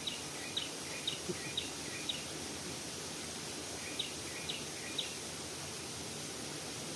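Outdoor ambience with a steady hiss, over which a bird gives short, sharp chirps about twice a second, in two runs.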